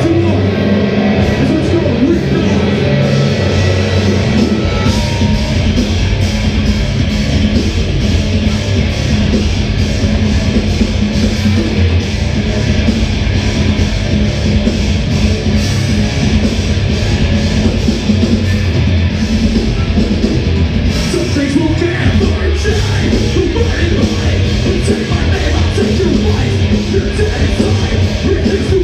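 A heavy rock band playing live and loud, guitars with singing.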